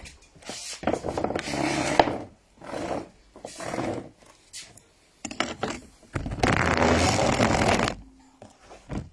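Scraping and knocking of goods being moved and loaded, in several noisy bursts, the longest and loudest lasting about a second and a half near the end.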